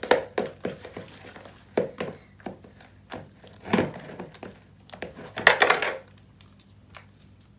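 Hands kneading and slapping wet, sticky slime against the side of a plastic mixing bowl while fresh activator is worked in: irregular squelches and knocks, loudest in a cluster just before six seconds in, then quieter.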